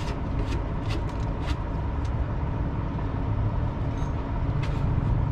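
Truck engine idling steadily, with sharp metallic clinks of hand tools against the jeep's airbag mount and frame.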